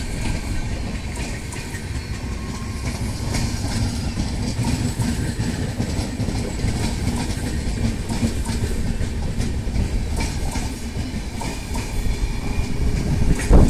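LHB passenger coaches of an express train rolling past at speed: a steady rumble of steel wheels on the rails with repeated clicks as the wheels cross rail joints.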